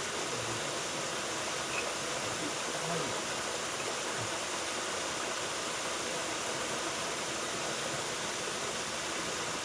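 Waterfall with water falling and splashing in a steady, even rush.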